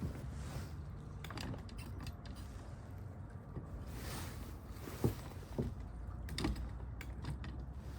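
Scattered light clicks, taps and creaks of fishing tackle being handled, with a couple of sharper knocks about five and six and a half seconds in, over a low steady rumble.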